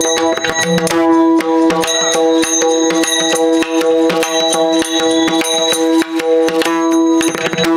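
Devotional kirtan accompaniment without singing: pakhawaj drum strokes in a quick rhythm over a steadily held drone note, with hand cymbals ringing high above.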